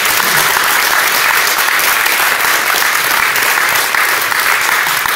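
Audience applauding, a dense, steady clatter of many people clapping.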